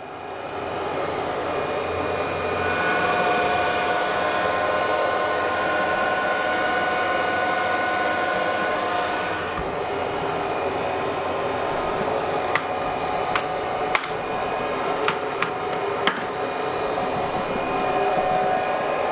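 Bitmain Antminer S19j Pro's cooling fans running at speed with the cooler enclosure's lid open: a steady rush of air with a high-pitched whine over it. The whine fades about nine and a half seconds in, and a few sharp clicks follow.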